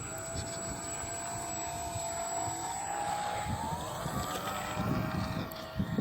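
Remote-control airplane's motor and propeller whining, its pitch rising about three seconds in. Wind rumbles on the microphone underneath.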